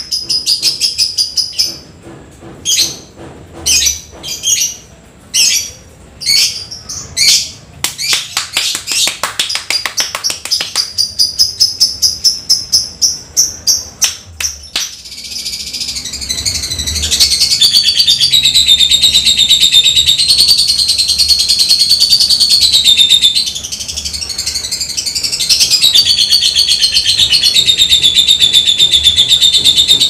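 Lovebird singing: separate sharp chirps about a second apart, then a fast run of ticking notes (the 'ngetik'), and from about halfway a long, unbroken high chatter, the 'ekek panjang' that fanciers prize in a bird in full song. The long chatter dips briefly once before resuming.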